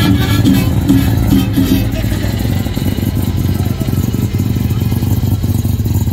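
Music fading out about two seconds in, over a steady low engine rumble from a vehicle running at idle.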